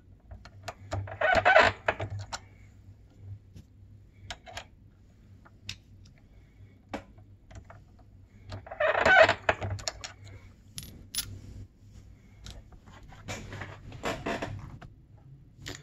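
Lee reloading press being worked to seat a primer in a rifle case: scattered light metal clicks, with two louder bursts lasting about a second each, one near the start and one about halfway through.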